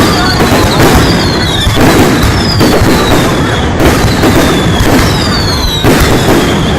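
A fireworks display going off: a dense, unbroken barrage of booms and bursts, with repeated high whistles that fall in pitch.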